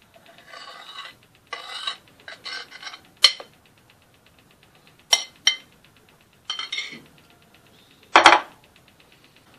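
Spatula scraping and clinking against a bowl as the chocolate glaze is emptied out, with several short scrapes and a few sharp clinks. The loudest knock comes near the end.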